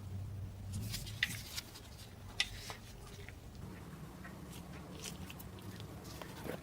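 A few sharp clicks and light knocks, the loudest two about a second and two and a half seconds in, over a low steady hum.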